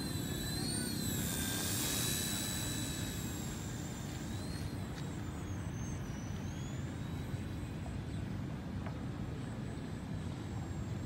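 High-pitched whine of a K127 micro RC helicopter's rotor motor in flight, wavering in pitch and growing fainter as it flies away, over a steady low rumble.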